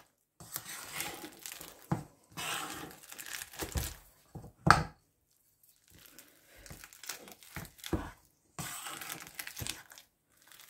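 Potato masher worked through a soft cheese mixture in a stainless steel bowl: irregular squelching and scraping, with a few sharper knocks of the masher against the bowl. The loudest knock comes near the middle, followed by a short pause.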